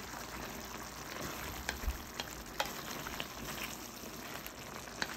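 Tomato-based beef and olive stew cooking in a stainless steel pan with a steady hiss while a wooden spatula stirs it, giving a few light clicks and scrapes against the pan.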